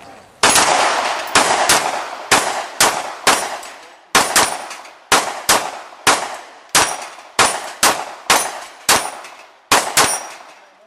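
A rapid string of about twenty gunshots, roughly two a second, fired at steel plates during a timed run. Each shot is sharp and trails off briefly.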